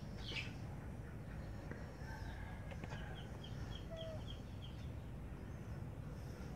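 Faint bird calls: a quick falling chirp at the start, then a rapid run of about eight short high chirps about three seconds in, over a steady low rumble of background noise.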